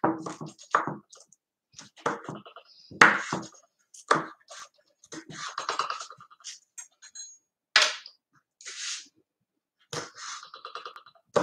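Chef's knife chopping pitted olives on a wooden cutting board: a run of uneven knocks of the blade on the board, with a few louder strikes.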